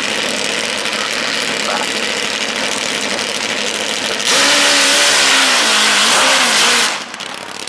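Rally car engine running hard. About four seconds in it gets much louder, its note rising and falling for a couple of seconds, then the sound drops away abruptly.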